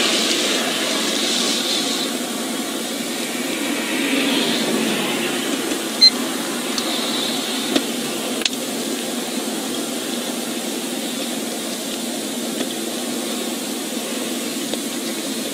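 Steady cabin noise inside a stopped patrol car, from the idling engine and the ventilation fan. A few faint clicks, and a short high beep about six seconds in.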